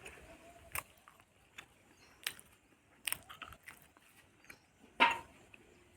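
Faint, scattered clicks and crunches of a buffalo feeding, a few each second at most, with one louder short sound about five seconds in.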